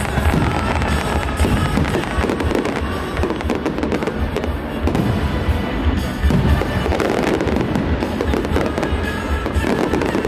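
Fireworks display: fireworks bursting in quick succession, a dense, continuous run of bangs and crackles, with music playing underneath.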